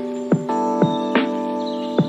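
Background music: held chords with a beat of short percussive hits, each dropping quickly in pitch, a few each second.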